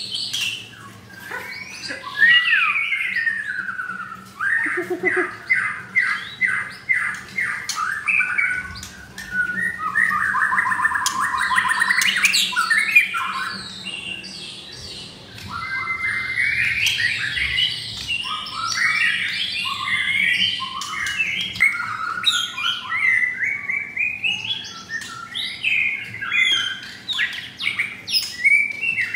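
White-rumped shamas (murai batu) singing loudly in a varied run of whistled phrases, with rapid repeated notes and a fast trill. The song eases briefly about halfway through, then goes on.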